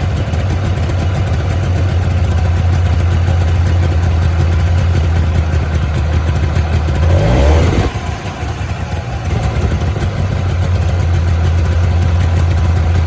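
Subaru 360's small air-cooled two-stroke twin engine idling steadily, blipped once about seven seconds in: the revs rise briefly, then drop back to idle.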